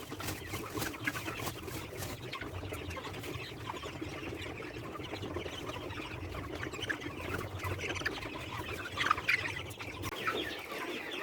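Flock of chickens in a poultry house chirping and clucking, many short calls overlapping over a low steady hum, with a busier burst of calls about nine seconds in.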